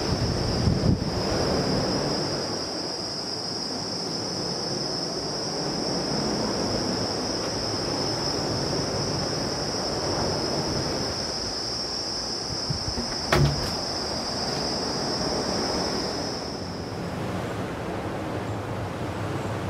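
Steady rush of sea surf and breeze, with a steady high-pitched whine that stops about three quarters of the way through. A single sharp knock sounds about two thirds of the way in, and there are a couple of light handling bumps at the start.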